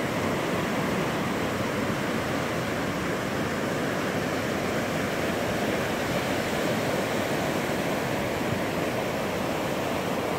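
Ocean waves breaking and washing up the shore, a steady rushing noise.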